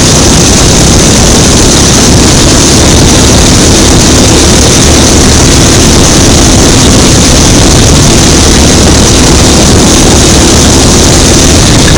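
Go-kart engine running steadily under throttle as the kart laps the track, picked up close by an onboard camera so it is very loud and distorted.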